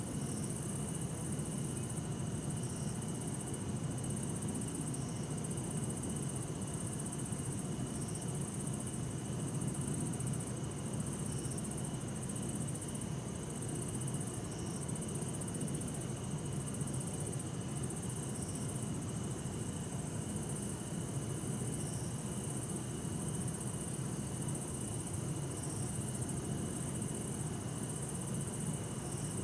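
Bell crickets (suzumushi) and other crickets singing in a steady night chorus, some in a continuous high trill and others in short notes repeating every few seconds, over a low, steady distant city hum.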